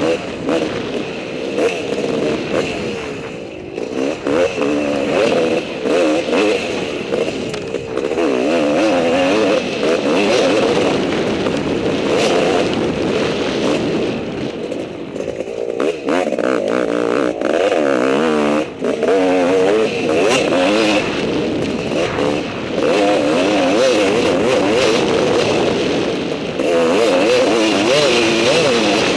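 Enduro dirt bike engine revving up and down continuously under hard riding, its pitch constantly rising and falling. Frequent knocks and clatter come from the bike hitting rough ground.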